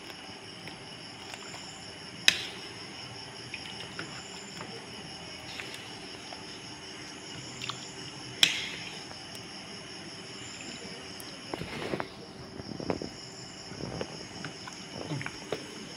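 A plastic spatula knocks sharply against a metal wok twice while beef stew is scooped out into a bowl, followed by softer irregular scraping in the last few seconds. Crickets chirp steadily in the background.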